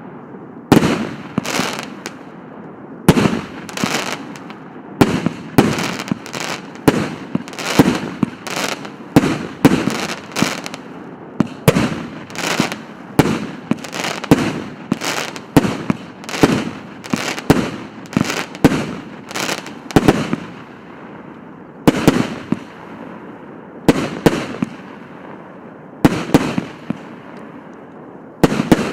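A 150-shot fireworks battery (cake) firing shot after shot: sharp bangs about one or two a second, each trailed by crackling. The shots thin out to one every couple of seconds in the last third.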